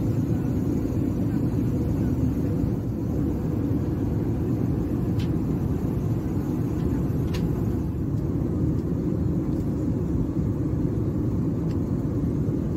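Steady low rumble of engine and airflow noise heard inside the cabin of an Airbus A321-211 in flight.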